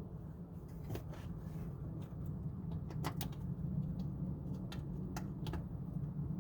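Scattered light clicks and taps of nuts and metal parts being hand-fitted on a window regulator inside a car door, over a steady low hum.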